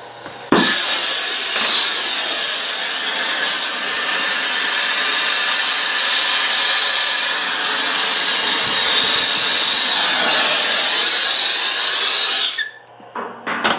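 Air-acetylene torch with a number 3 tip burning against an aluminium joint to heat it for brazing: a loud, steady rushing hiss with a high whistle through it. It starts suddenly about half a second in and cuts off near the end.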